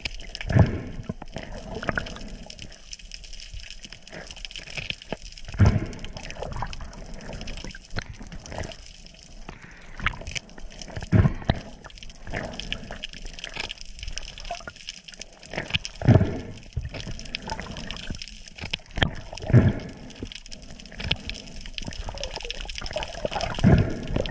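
Underwater water noise picked up through an action camera's housing: a steady swishing and bubbling of moving water, with a louder low gurgling thump every four or five seconds.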